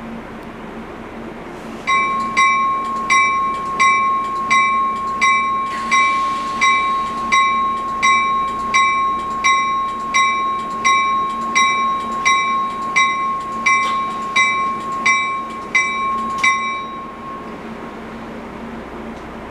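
A train's bell rings about twenty times, roughly one strike every 0.7 seconds, with a steady ringing tone beneath. It starts about two seconds in and stops about seventeen seconds in, a departing train's warning bell.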